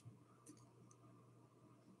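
Near silence: room tone with a faint steady hum and a few faint clicks in the first second.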